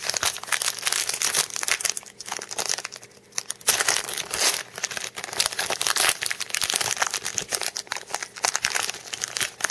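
A football card pack's wrapper being torn open and crinkled in the hands, a dense crackling rustle with short pauses about two and three seconds in.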